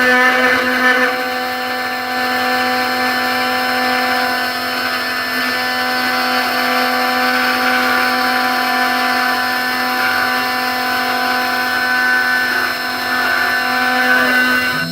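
CNC 6040 router spindle at 12000 RPM milling 2 mm aluminium with a 2 mm two-flute end mill: a steady, loud whine with a gritty cutting noise over it.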